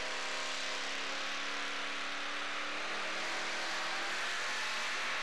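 Two-wheel-drive pulling truck's engine running hard at high revs while it drags a weight-transfer sled, a loud, steady engine noise.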